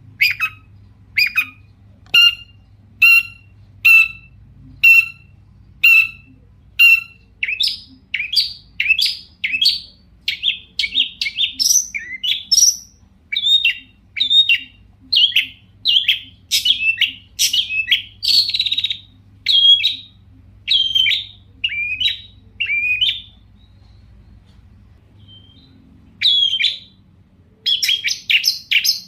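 Long-tailed shrike (cendet) singing loudly: a run of short sharp calls about one a second, then faster, more varied chattering notes. It pauses for a few seconds near the end, then the calls start again.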